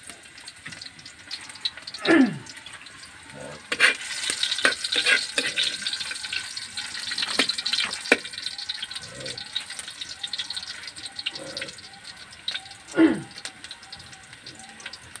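Garlic sizzling in hot oil in an iron wok, with a metal ladle clicking and scraping against the pan as it is stirred. Twice, about two seconds in and near the end, a loud call slides steeply down in pitch.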